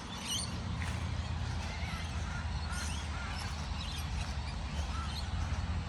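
Birds calling: scattered short, wavering calls over a steady low rumble.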